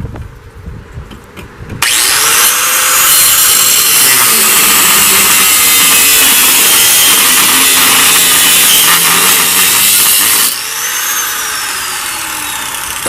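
Power cutting tool slicing through a steel bolt to shorten it. The loud, continuous cut starts about two seconds in and runs for roughly eight seconds. It then stops abruptly, and the tool's motor winds down with a falling whine.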